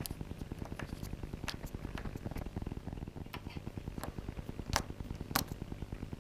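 A small screwdriver working out the tiny screws on an iPhone 4S's ribbon-cable retaining plate: scattered light metallic clicks and ticks, a few standing out sharply, over a steady low buzz.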